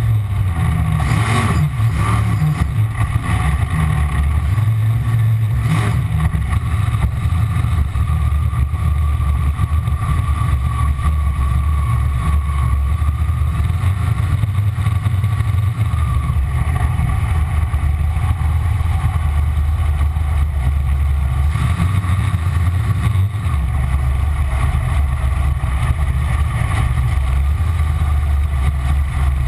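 Ford engine of a V-drive boat running steadily, with a deep, even drone and slight shifts in tone along the way.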